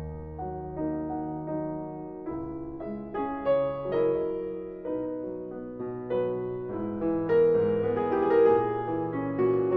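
Background piano music: a calm piece of overlapping sustained notes.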